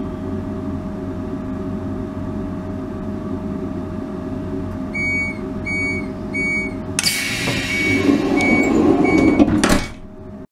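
Older Intercity coach's automatic entrance door closing: about five seconds in the door warning signal beeps in short evenly spaced pulses. About two seconds later the door mechanism starts moving with a loud rush while the beeps go on, stopping abruptly as the door shuts. A steady hum from the standing coach runs underneath.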